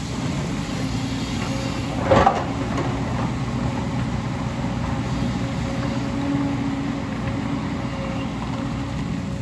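JCB crawler excavator's diesel engine running steadily under load as it digs rock and earth, with a loud crunch of the bucket striking the rubble about two seconds in.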